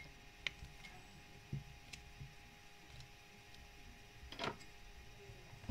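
Spiral-bound puzzle challenge booklet being flipped over on its stand: a few faint clicks and a page rustle, the loudest about four and a half seconds in, over a faint steady hum.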